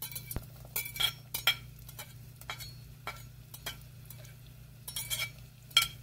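Utensil clinking and scraping against a bowl as chopped onion and green pepper are knocked out into a saucepan: about a dozen sharp, irregular taps, each with a brief ring.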